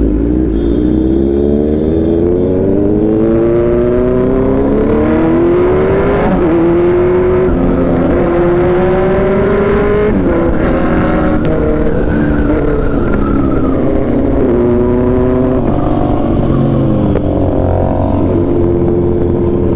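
Kawasaki Z900's inline-four heard from the rider's seat: it revs up through the gears for the first six seconds or so with a drop in pitch at each upshift, holds a steady cruise, then eases off and downshifts as the bike slows near the end.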